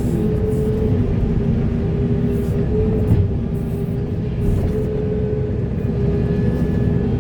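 Heavy excavator's diesel engine and hydraulics running steadily under load, a deep rumble with a steady whine over it.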